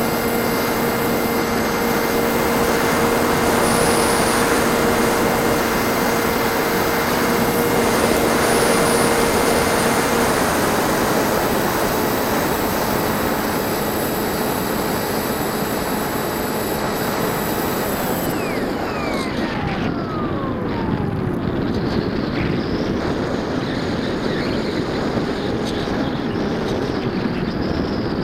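Bixler 1.1 RC plane's NTM 2200kv electric motor and propeller running under steady power with a rush of air, heard from on board. About two-thirds of the way through, the motor note drops away in a falling whine as the throttle comes back, leaving mostly air rush as the plane glides.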